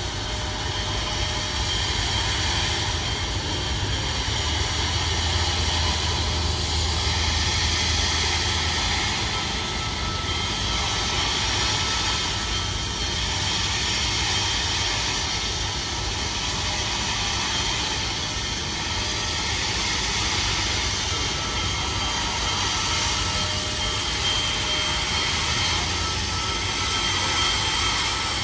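Union Pacific Big Boy 4014 steam locomotive standing under steam, giving off a steady hiss and roar that stays much the same throughout.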